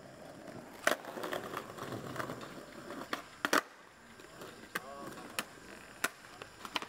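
Skateboards on brick pavers: several sharp clacks of boards popping and landing, the loudest about a second in and about three and a half seconds in, with wheels rolling over the pavers between them.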